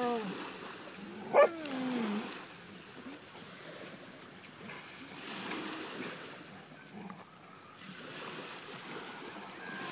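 A dog gives one short, loud bark about a second and a half in, its pitch falling sharply, over a faint steady background hiss. At the very start, the tail of a long falling howl fades out.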